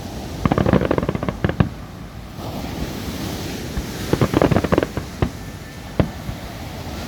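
Fireworks going off: two bursts of rapid crackling pops, about half a second in and about four seconds in, then a single sharp bang about six seconds in.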